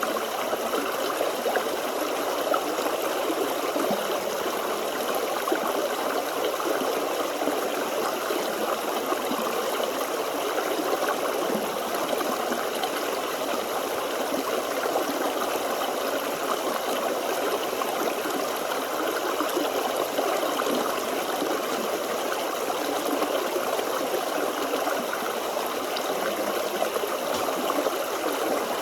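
Forest stream flowing steadily over rocks: a continuous babbling rush of water with no breaks.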